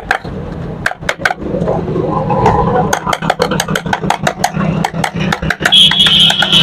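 Quick run of sharp metal clicks and taps, several a second, as a motorcycle clutch housing and its plate are handled and worked on by hand. Under it runs a steady low engine hum, and a brief high whine comes near the end.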